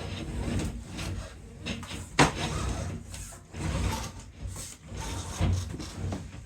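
Handling noise as a laptop and its packaging are moved about: irregular rubbing and scraping, with a sharp knock about two seconds in and a few softer knocks.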